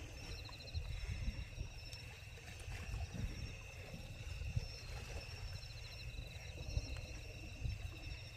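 Insects trilling steadily in high-pitched, fast-pulsing chirrs, over a low, constant rumble.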